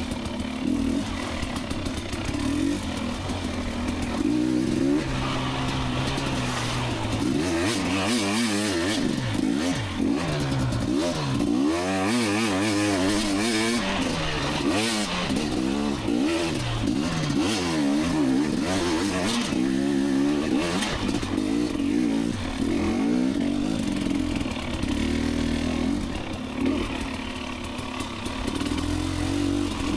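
Two-stroke dirt bike engine being ridden, revving up and down with the throttle. It is steadier at first and later, with rapid rises and falls in pitch in the middle.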